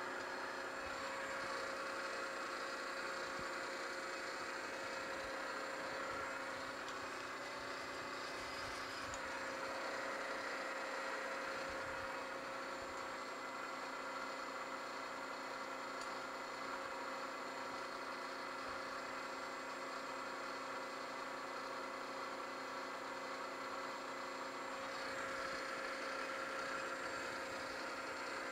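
Milling machine spindle running steadily as it spins an edge finder: a steady whir with a few fixed tones.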